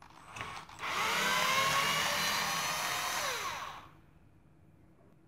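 Cordless drill turning a Powerfix 90-degree angle drill attachment to back a screw out of wood. The motor and gears run with a whine for about three seconds, then wind down in pitch as it stops.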